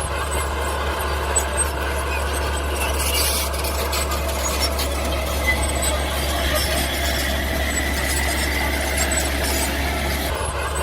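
Mini bulldozer working: its engine runs steadily under a high, steady metallic squeal, with small ticks and clanks scattered through.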